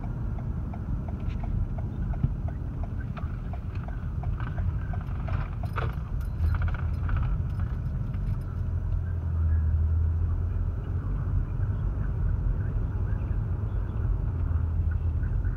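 Car cabin noise while driving slowly: a steady low road and engine rumble, with a light regular ticking, about three a second, for the first few seconds.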